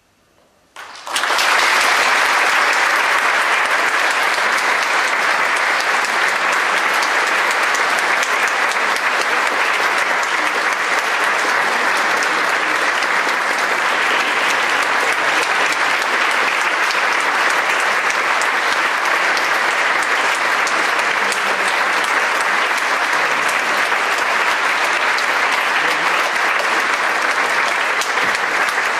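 Audience applauding, breaking out suddenly about a second in after a moment of near silence and then holding steady.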